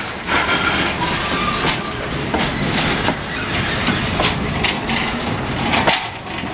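Railway coaches and a caboose rolling past on jointed track, their wheels clacking over the rail joints, with the rumble easing as the last car goes by near the end.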